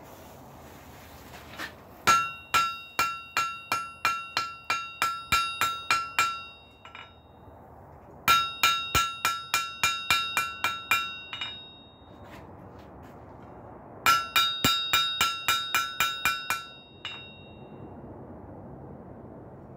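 Hand hammer striking white-hot steel on an anvil in three runs of quick blows, about three or four a second, each blow with a clear ring. The smith is forging down a folded, forge-welded flat bar.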